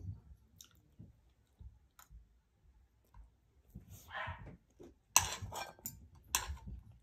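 Quiet eating sounds at a close microphone: scattered faint clicks, then a run of four or five sharp mouth clicks and smacks about five seconds in.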